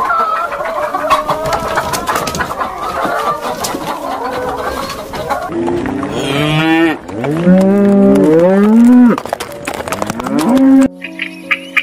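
Domestic hens clucking, many calls overlapping, for the first five seconds or so. Then a cow moos loudly in several long calls, one rising in pitch. Music with steady notes starts near the end.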